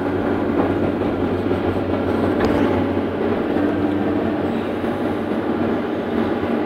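Cat 318C excavator's diesel engine and hydraulics running steadily under working load while the bucket swings and empties rubble, heard from inside the cab. A single short knock comes about two and a half seconds in.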